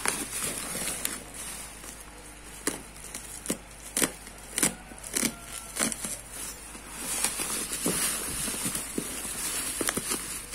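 Black plastic bubble wrap being torn and pulled off a cardboard box: plastic crinkling and rustling, with a run of sharp crackles and snaps in the middle, then steadier rustling.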